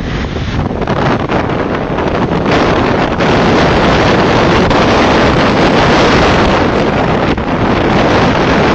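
Gale-force south-east jugo wind, about 8 Beaufort, blowing hard across the microphone: loud and steady, growing louder about two and a half seconds in. Waves splash against the concrete shore under it.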